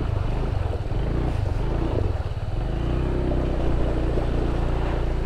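Honda ADV 160 scooter's single-cylinder engine running steadily as it wades through a shallow river crossing, under a steady rushing noise of water and wind.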